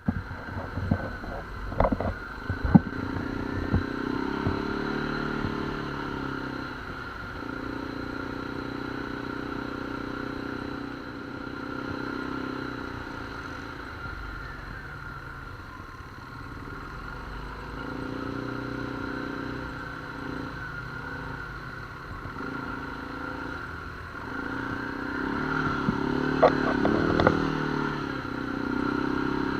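ATV engine running along a rough trail, the throttle opened and eased off again and again so the engine note rises and falls in stretches. Clattering knocks from the machine bouncing over the trail come in the first few seconds and again near the end.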